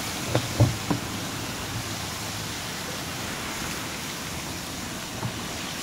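Water spraying onto a hot steel anvil, hissing steadily as it flashes to steam. A few short knocks come in the first second.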